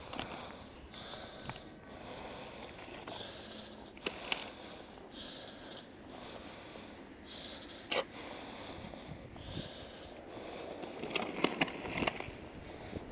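Footsteps crunching in packed snow at a slow walking pace, about one step a second. Near the end comes a cluster of scrapes and knocks as a snow shovel blade pushes through the snow.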